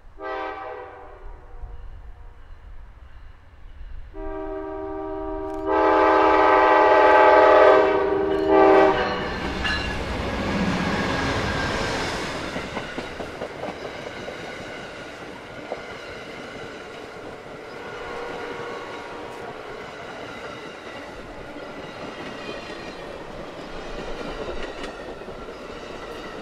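Amtrak passenger train, led by GE P42DC and P40DC diesel locomotives, sounding its air horn at a grade crossing: a short blast, then a long one of about five seconds that grows louder partway through. The locomotives then pass close with a loud rush of engine and wheel noise. The passenger cars follow, rolling past with a steady clickety-clack of wheels over the rail joints.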